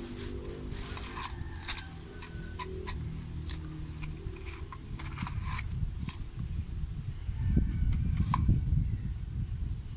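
Sharp clicks and crinkles of a cardboard medicine box, its paper leaflet and a foil blister strip being handled, densest in the first six seconds. A low rumble runs underneath and grows louder near the end.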